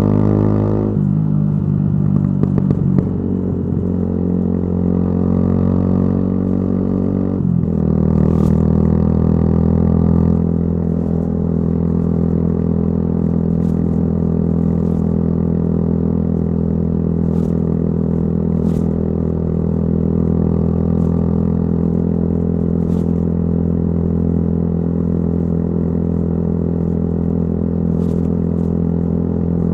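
Yamaha YZF-R125's single-cylinder four-stroke engine running through a modified exhaust while riding. Its note falls about a second in and dips briefly about seven seconds in, then holds steady.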